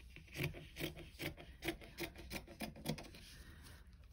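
A hand rubbing and smoothing a piece of blue cotton fabric laid over batting on a tabletop, in a run of short rubbing strokes, about two or three a second.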